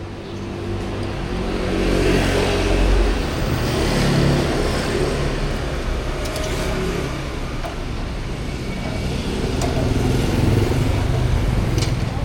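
Road traffic: motor vehicle engines running, with the noise swelling twice as vehicles pass or speed up, once about two to four seconds in and again near the end.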